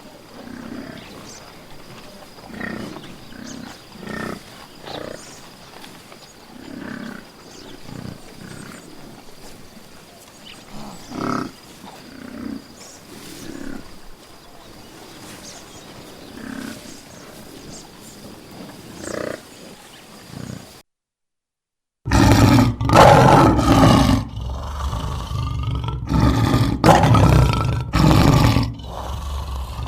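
Lion calling: a series of short, low grunting calls about a second apart, then after a brief silent break, much louder, full roaring to the end.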